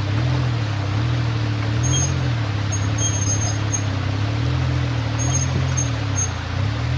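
Suzuki Jimny engine running at low revs, its pitch rising and falling gently as the 4x4 crawls over creek-bed boulders, over the steady rush of the stream.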